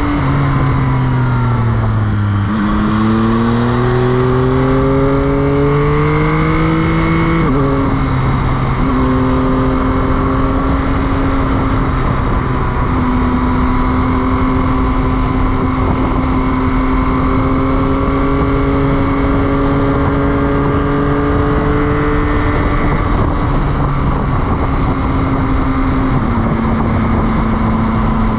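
Motorcycle engine heard from on the bike: the revs fall for about two seconds, then climb under acceleration until a gear change about seven seconds in, after which the engine holds fairly steady revs, easing down a little near the end. A steady rush of noise runs beneath it.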